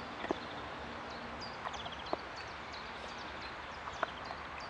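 Outdoor background with small birds chirping repeatedly, and a few short, sharp clicks, the loudest about a quarter of a second in and again about four seconds in.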